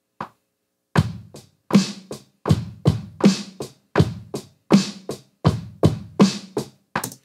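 Logic Pro X's Brooklyn software drum kit played live from a MIDI keyboard at 80 BPM: a very simple groove of steady drum hits, about two and a half a second, starting about a second in just after a metronome count-in click.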